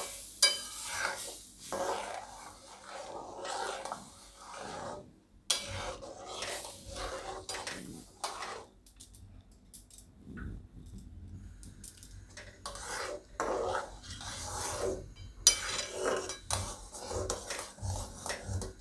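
Metal spatula stirring and scraping around a metal kadai of thin wheat-flour porridge in repeated irregular strokes, with a few sharp knocks of metal on the pan; stirred to keep lumps from forming. The strokes ease off for a few seconds midway, then pick up again.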